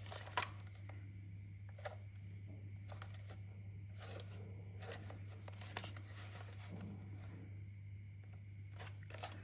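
Light handling of unboxed drone accessories and packaging: scattered soft clicks and rustles as items are picked up and set down, over a steady low hum.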